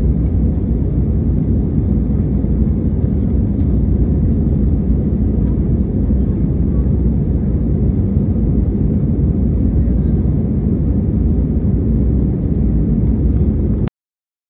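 Commercial airliner's engines and airflow heard inside the cabin as a steady, loud low rumble that cuts off suddenly near the end.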